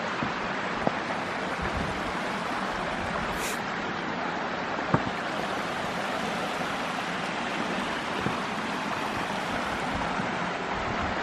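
Steady rushing of waterfall water into a pool, with a single sharp click about five seconds in.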